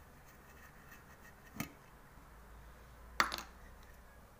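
Small metallic clicks and clinks as a screwdriver and small parts are handled on a metal car dash cluster housing: one click about a second and a half in, and a sharper double clink a little after three seconds.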